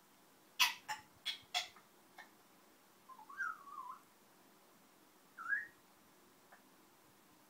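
A few sharp clicks, then a Congo African grey parrot whistling: a wavering whistle that rises and falls about three seconds in, and a short rising whistle about two seconds later.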